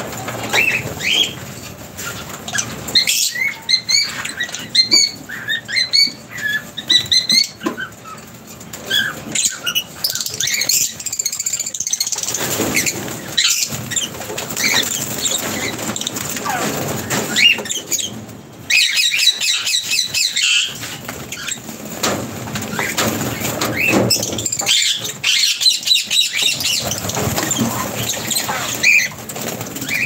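A flock of aviary lovebirds chirping and twittering with many short, high calls, with bursts of wing flapping as birds fly on and off a perch.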